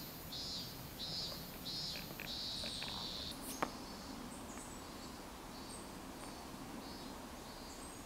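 Eurasian nuthatch singing: a run of short, rapid trilled phrases, loudest in the first three seconds and fainter after. A single sharp click about three and a half seconds in.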